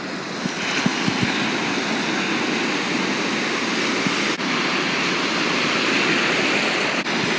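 Ocean surf rushing steadily, a continuous wash of breaking waves, with a few low knocks about a second in.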